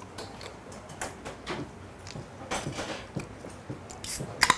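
Aluminium can of Coca-Cola being cracked open near the end: a short fizzing hiss as the carbonation escapes and sharp clicks of the pull tab. Faint small clicks and knocks of tableware before it.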